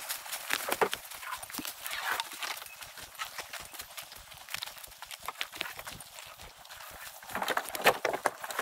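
Footsteps through leaf litter and low forest undergrowth during a canoe portage: an irregular patter of light crunches and rustles, with a louder cluster of rustling near the end.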